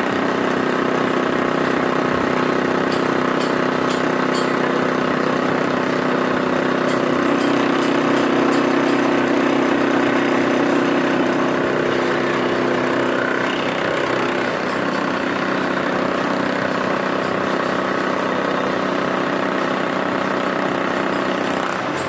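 Milling machine running steadily, a continuous mechanical hum made of several even pitched tones, a little louder in the middle.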